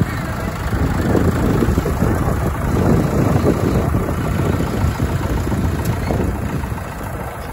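Mahindra farm tractor's diesel engine idling steadily, with a fast, low chugging beat that swells slightly for a couple of seconds.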